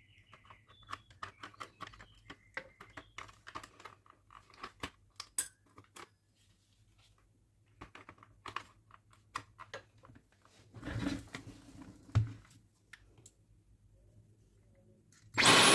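Scattered small clicks and taps of a Dyson V15 battery pack being handled and fitted to a Dyson motor unit. Near the end the motor starts and runs at a loud, steady whir, showing that the repaired battery powers it.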